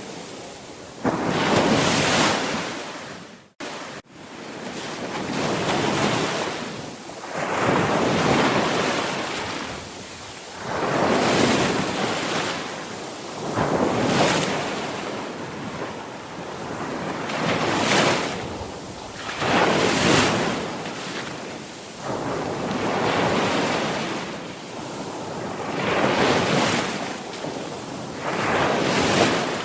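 Sea waves breaking and washing in, one swell after another every two to three seconds. The sound cuts out briefly about three and a half seconds in.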